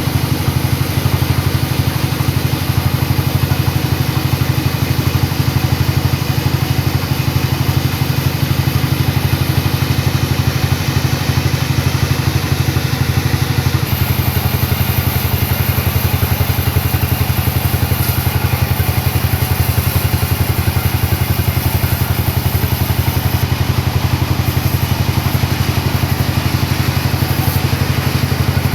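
Sawmill engine running steadily with a low, even drone; about halfway through a high hiss joins it.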